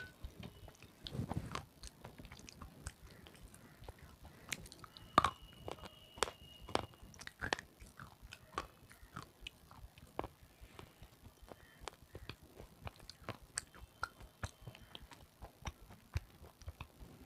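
Close-miked chewing of red sileti (slate pencil): a run of irregular, crisp crunches, the loudest about five seconds in.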